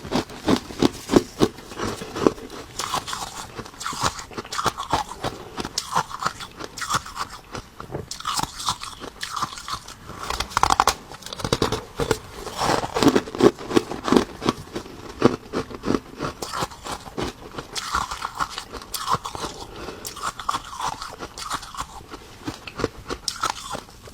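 Ice being bitten and chewed: a continuous, irregular run of crisp crunches.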